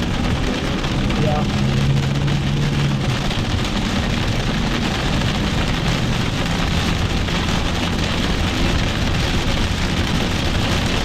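Heavy rain beating steadily on a moving car, heard from inside the cabin, over the car's low road and engine hum.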